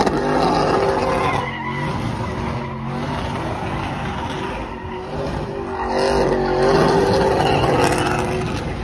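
Car doing donuts: the engine runs hard under load while the tyres spin and skid on the pavement. The sound swells twice, at the start and again near the end.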